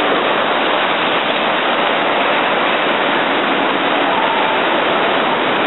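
Ocean surf breaking and washing up the shore: a steady, loud hiss of foaming water.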